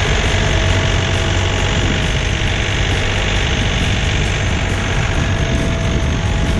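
John Deere 3046R compact tractor's three-cylinder diesel engine running steadily as the tractor drives with its front-mounted snowblower, with a thin steady whine under the engine note.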